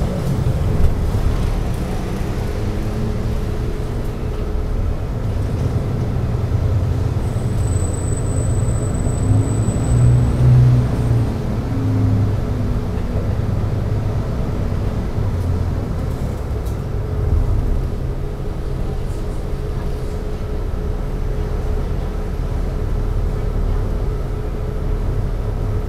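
City bus engine running with a steady low rumble, heard from inside the cabin as the bus creeps along in traffic; the rumble swells briefly about ten seconds in. A thin high whine sounds for about three seconds near the middle.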